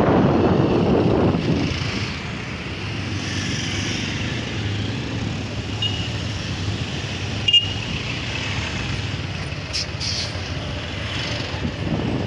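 Road and traffic noise from a moving motorcycle in city traffic. Wind buffets the microphone loudly for the first second and a half, then eases to a steadier engine and traffic hum, with one sharp click about seven and a half seconds in.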